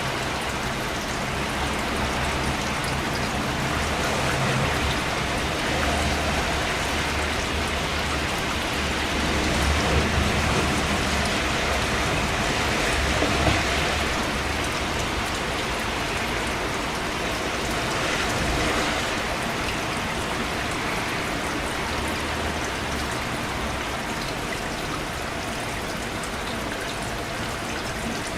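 Steady rain falling, an even hiss with a low rumble underneath that swells and fades.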